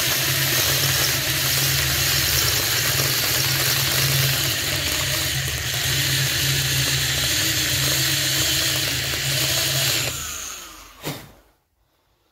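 Electric drill running steadily with a 10 mm bit, counterboring the pinch-bolt hole of a Shimano Deore Hollowtech crank arm so a bolt head will sit recessed. About ten seconds in the motor cuts off and spins down, followed by a single click.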